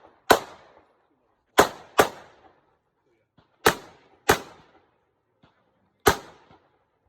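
Glock 17 9mm pistol fired six times at an uneven pace, with two quick pairs of shots in the middle. Each shot is a sharp crack with a short ringing tail.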